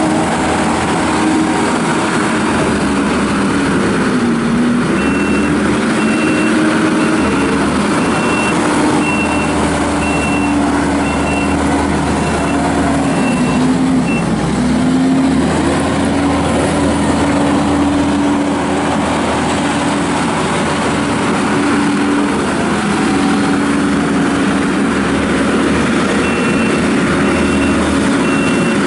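Kubota SVL75-2 compact track loader's diesel engine running under load, its pitch dipping and rising as the machine is driven. A backup alarm beeps about once a second for several seconds after the start and again near the end, as the loader reverses.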